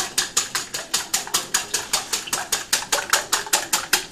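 Wire balloon whisk beating egg whites by hand in a glass bowl, the wires clicking against the glass in a fast, even rhythm of about eight strokes a second as the whites are whipped to stiff peaks.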